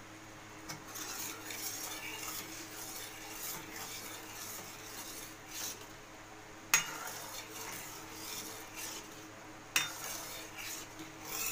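A steel ladle stirs and scrapes through sugar syrup in a metal kadai, with two sharp clinks of metal on metal, one just past halfway and one near the end.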